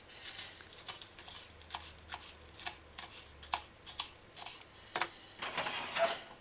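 Kitchen knife chopping scallion on a plastic cutting board: irregular taps of the blade, about two a second, with a louder rustling stretch near the end.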